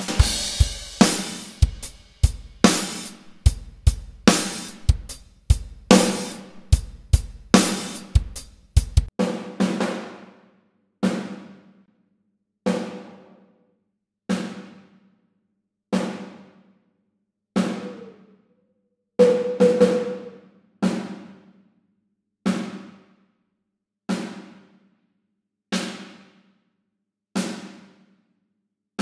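Superior Drummer 3 sampled drum kit playing a groove with kick, snare and cymbals for about nine seconds. Then a single drum is struck on its own about every second and a half, each hit ringing out with a clear overtone, while the room-mic channel's EQ is adjusted against it.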